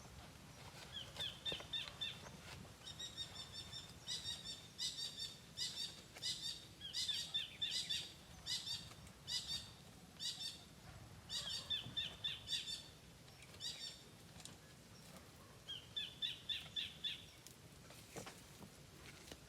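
A bird calling in runs of short, rapidly repeated high chirps, in several bouts with brief pauses between them, over a faint low steady hum.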